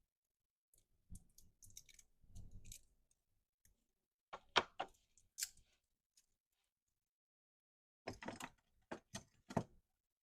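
Hard parts for a battery pack being handled on a work surface: scattered light clicks, then sharper clicks and knocks in two clusters, one about four seconds in and one near the end.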